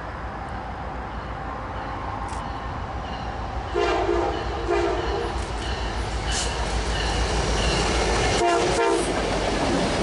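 Canadian National diesel freight locomotive approaching and passing while sounding its air horn: two blasts about four seconds in and a shorter one near the end, over a low engine rumble that grows louder as the train nears.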